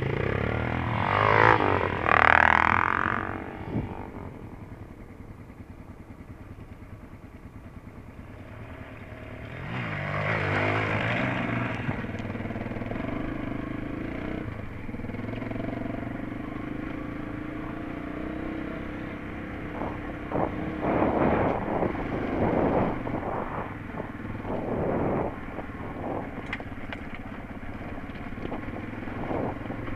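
Enduro dirt bike engines. One bike revs loudly as it passes close about a second in. Then a bike's engine pulls away and runs along a stony trail, its note rising and falling with the throttle, with sharper surges of revs about two-thirds of the way through.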